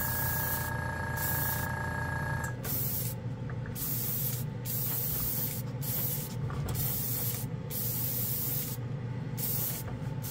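GSI Creos Procon Boy PS290 trigger airbrush spraying primer in a run of short hissing bursts with brief pauses between them. The tank air compressor's steady hum cuts off suddenly about two and a half seconds in, the sign that it has refilled its tank and shut off.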